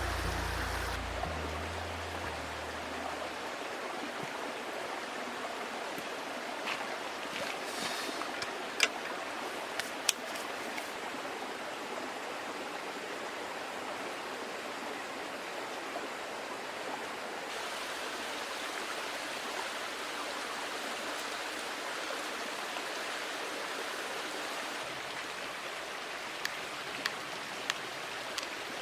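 A small stream flowing, a steady rush of water, with a few sharp clicks or taps about a third of the way in and again near the end.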